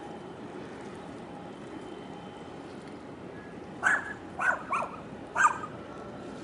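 A dog barking four times in quick succession, starting about four seconds in, over a steady low rushing background.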